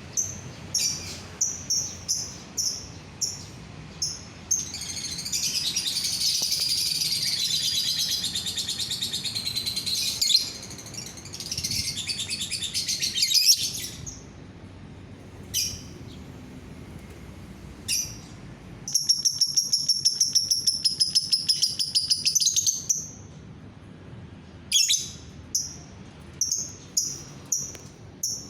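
Lovebird singing: sharp single high chirps, then a long, loud, chattering song lasting about six seconds, a shorter burst after it, and a fast, even trill of about four seconds past the middle, ending in more single chirps.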